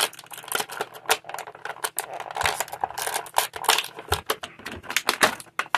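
Plastic action-figure packaging being handled and pulled apart: a dense run of irregular crinkles and clicks.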